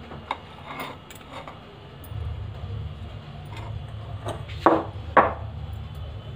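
Glass and ceramic mixing bowls being handled and set down on a stone countertop: a few light clicks, then two sharp knocks about half a second apart near the end. A low steady hum comes in about two seconds in.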